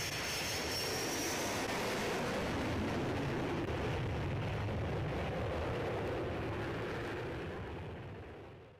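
Fighter jet flying past: a steady rushing rumble of jet engine noise, with a high whine in the first second or so. It fades over the last two seconds and then cuts off.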